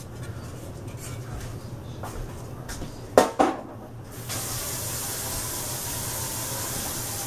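A metal cake pan clanks down with a brief ring about three seconds in. About a second later a kitchen tap starts running in a steady stream.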